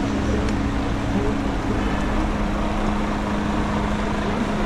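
A large truck's diesel engine idling alongside, a steady low hum, over an even hiss of rain and wet street traffic.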